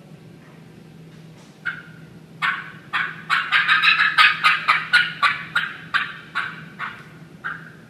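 Hen wild turkey fly-down cackle imitated on a mouth call: a few spaced notes, then a fast, uneven run of sharp cackling notes that slows again near the end.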